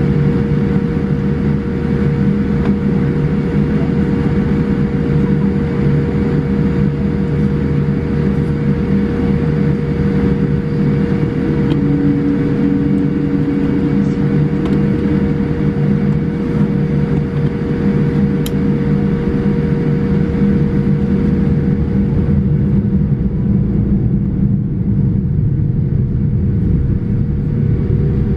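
Cabin noise of a Boeing 787-8 taxiing, with its Rolls-Royce Trent 1000 engines at low thrust. It is a steady deep rumble with one constant tone running through it, and the higher hiss fades somewhat in the last few seconds.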